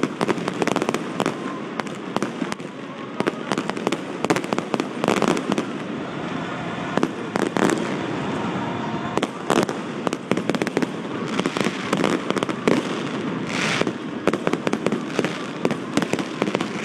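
Fireworks display: aerial shells bursting with a dense, irregular run of bangs and crackles. A short hiss comes near the end.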